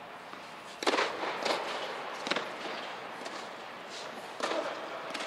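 Tennis balls popping off rackets or bouncing on an indoor hard court, with each sharp hit echoing under the dome: three hits in the first two and a half seconds and another near the end.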